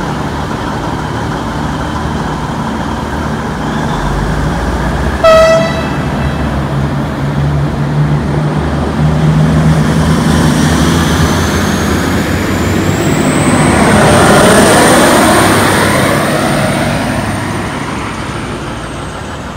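V/Line VLocity diesel multiple units: one pulls away with its diesel engines running and gives one short horn toot about five seconds in. A second VLocity then draws in on the near track, its noise swelling to a peak a little past the middle with a high whine rising and then holding, and fading near the end.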